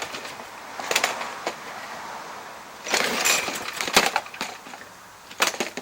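Craftsman push mower's recoil starter pulled three times: the rope rasps out and the engine cranks over without firing or running. It won't start because the flywheel key is bent from the blade hitting a stump.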